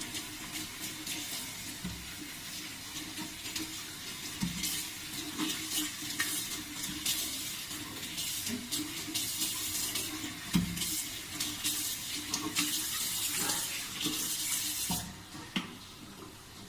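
Running water splashing irregularly as a person washes their hair under it, stopping near the end.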